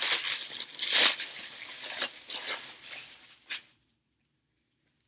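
Plastic packaging bag crinkling and rustling as a garment is handled and pulled out of it, with sharp crackles, stopping abruptly after about three and a half seconds.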